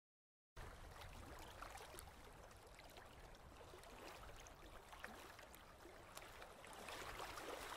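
Faint water lapping and trickling, with small scattered clicks, starting about half a second in and growing slightly louder near the end.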